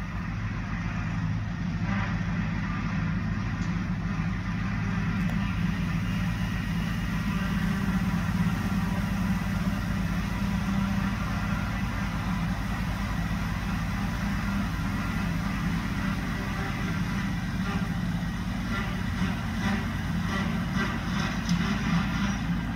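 Compact tractor engines running steadily while a tractor pulls a bush hog (rotary cutter) through brush and tall grass.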